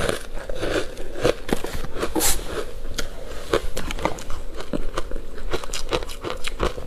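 Close-miked crunching and chewing of powdery ice dusted with matcha powder: many sharp, irregular crackles and crunches as it is bitten and chewed.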